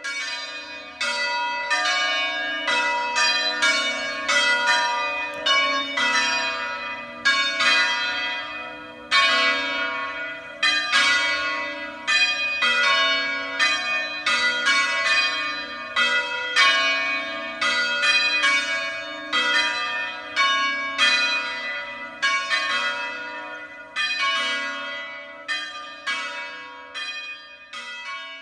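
Church bells ringing a peal: a run of overlapping bell strikes, about two a second, over the bells' steady hum, dying away near the end.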